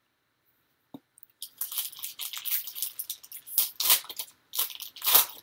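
Foil wrapper of a trading-card pack crinkling and crackling as it is torn open by hand, after a soft knock about a second in.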